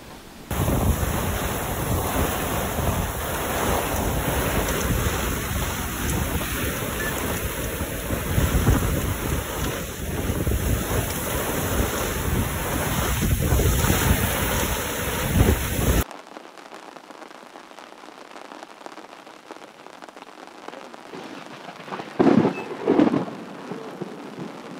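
Thunderstorm downpour with heavy rain and wind hitting the microphone, loud and rough, with the water on the lake churned up. About sixteen seconds in it cuts off suddenly to much quieter, steady rain, with two brief louder thumps near the end.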